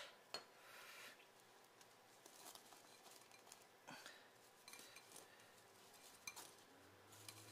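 Near silence, with a few faint clicks and soft rustling as a butter-coated pretzel stick is rolled by hand in cinnamon sugar in a glass bowl.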